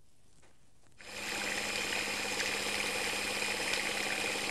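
Electric hand whisk switched on about a second in, its motor running at a steady pitch as the beaters whisk pancake batter in a glass bowl.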